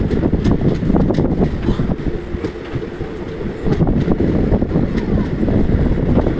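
Train rumbling at a railway station, with wind buffeting the microphone in a dense low rumble and scattered clicks.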